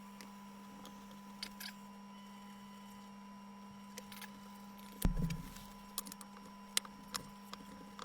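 Light clicks and taps of objects being handled on a work surface, with a heavier thump about five seconds in, over a steady electrical hum.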